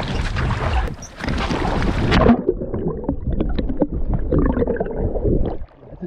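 Water splashing and crackling at the surface for about two seconds, then the sound turns suddenly muffled and gurgling as the microphone goes under water, with bubbles and scattered clicks.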